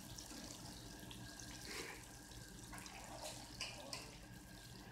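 Samosas deep-frying in a large kadai of hot oil: a steady sizzling hiss with scattered crackles.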